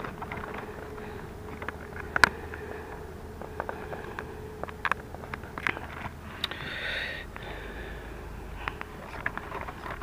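Scattered light clicks and taps of hands handling a toy RC ATV's plastic body and fitting its metal body clips, with a short breath about seven seconds in.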